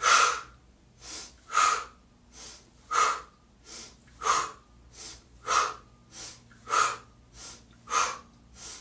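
A woman's rhythmic yoga kriya breathing: seven forceful, loud exhales through the mouth, about one every second and a quarter, each followed by a quieter inhale through the nose.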